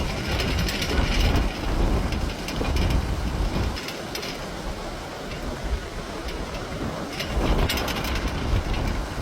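Storm noise from the extratropical cyclone: a loud, dense rush with a deep rumble that swells and eases in gusts, strongest about a second in and again near the end.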